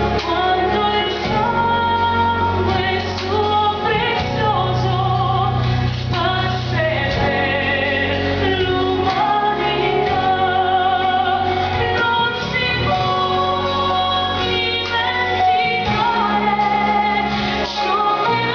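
Mixed church choir of women and men singing a worship song, the women's voices leading. A live band accompanies them with drum kit and electric guitar.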